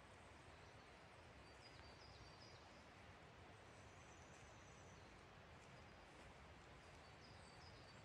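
Near silence: a faint steady hiss with a few faint, high bird chirps in short runs, about two seconds in, again past the middle, and near the end.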